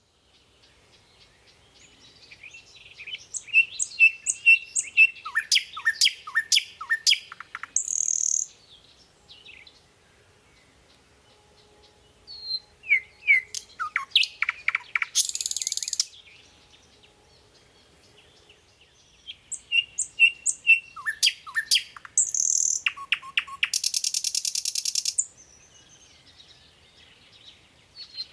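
A songbird singing in three bursts of quick chirps and downward-slurred whistles, each burst ending in a harsh buzzy rasp, with quiet pauses between them.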